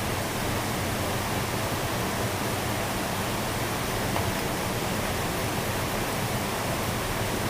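Steady rushing noise that stays even throughout, with no distinct events.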